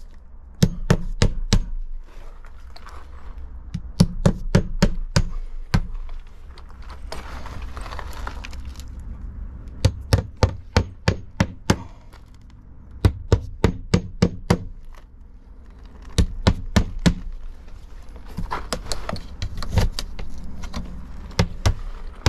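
Hammer driving nails through the nailing slots of vinyl board-and-batten siding, in quick bursts of several blows per nail with short pauses between nails.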